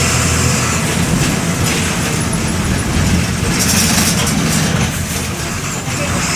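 Volksbus 17-230 EOD bus's MWM 6.12 TCE six-cylinder inline turbodiesel running steadily, with a brief high hiss about three and a half seconds in.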